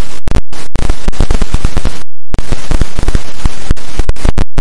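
Loud, distorted static glitch sound effect: harsh hiss full of crackles that cuts out abruptly several times, the longest gap about two seconds in, then stops dead at the end.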